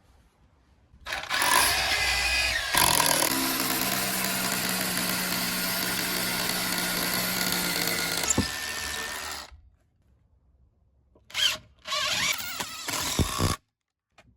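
SDS hammer drill with a 6mm masonry bit drilling through timber into concrete block for about eight seconds, its sound changing about two seconds in. After a short pause, an impact driver with a T30 bit briefly drives the concrete screw home, in two short runs.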